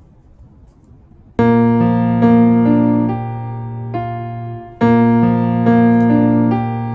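Keyboard music starting suddenly about a second and a half in: sustained chords over a held bass note, with the upper notes changing every half second or so. The phrase fades and starts again just before the five-second mark. Before it there is only faint background hiss.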